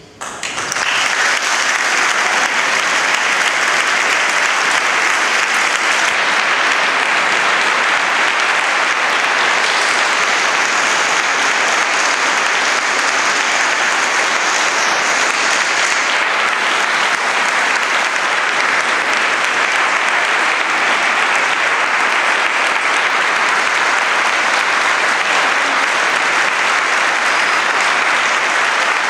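Audience applauding, starting abruptly about half a second in and then holding steady.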